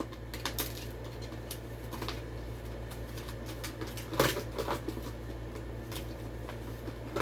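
Die-cast toy car packaging being handled and pried at: scattered light plastic clicks and crinkles, with a sharper cluster of clicks about four seconds in, over a steady low hum.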